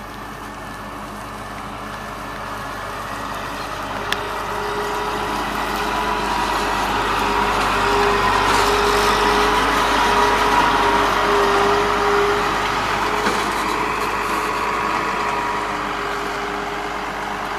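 Heavy farm machine's diesel engine running as it passes, growing louder toward the middle and easing off again, with a steady whine over the engine noise. A single sharp click about four seconds in.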